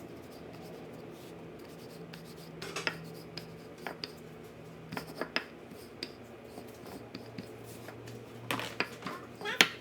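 Light kitchen handling noises: scattered taps, clicks and rubbing, the loudest cluster near the end, over a faint steady low hum.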